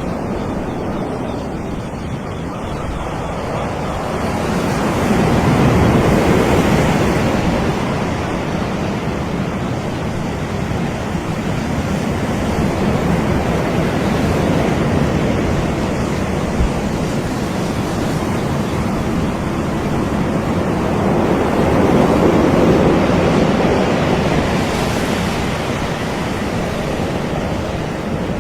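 Ocean surf on a beach: a continuous wash of breaking waves, swelling as a wave comes in about six seconds in and again about twenty-two seconds in.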